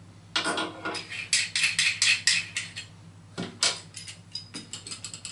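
Parts of a push-button toilet flush mechanism clicking and rattling as they are handled: a quick run of clicks for the first couple of seconds, two sharper clicks past the middle, then a few light ticks.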